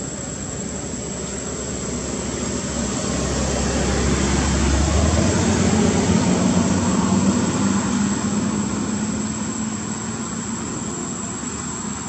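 A passing engine's rumble, swelling slowly to its loudest about halfway through and fading again.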